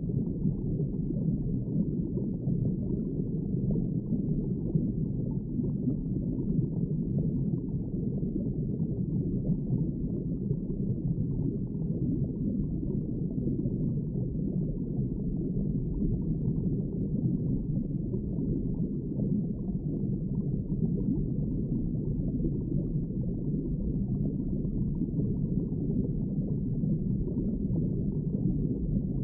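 Steady, muffled underwater water ambience: a low, even rumble with nothing standing out from it.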